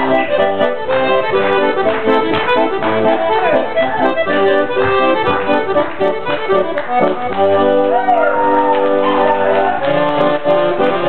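Accordion playing a traditional Scottish dance tune, with quick, steady-running notes and no break.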